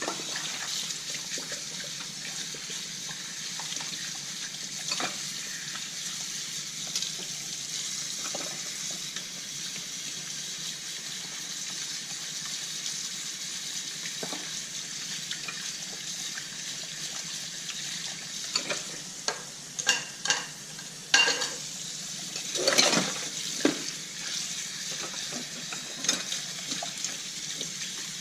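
Hand-washing dishes at a kitchen sink: water running with a steady hiss, and dishes and cutlery clinking and knocking against each other, mostly in the second half.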